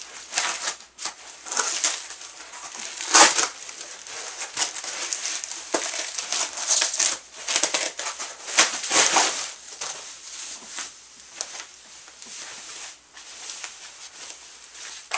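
Packing material being handled and pulled off a guitar while unpacking it: irregular crinkling and rustling with sharper crackles, loudest about three seconds in.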